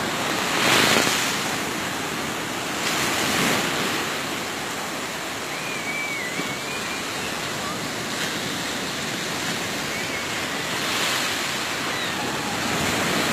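Small waves breaking and washing up a sandy beach: a steady rush of surf that swells as a wave breaks about a second in, again a few seconds later, and once more near the end.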